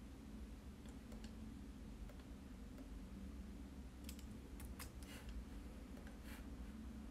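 A few faint clicks from a Dell laptop's touchpad and keys as text is selected and copied, most of them between about four and six and a half seconds in, over a low steady hum.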